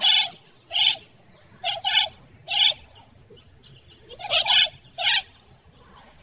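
Peafowl calling: a series of about eight short, loud, honking calls, some in quick pairs, with short pauses between them.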